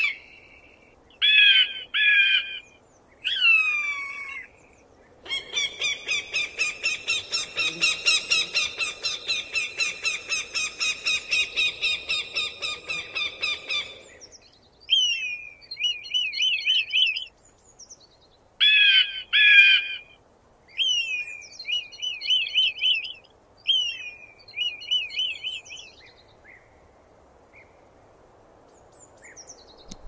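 A falcon calling. It gives a few harsh cries in the first seconds, one of them sliding down in pitch, then a long fast run of repeated harsh notes, roughly four a second, for about nine seconds. After that come several groups of short, rising notes that stop a few seconds before the end.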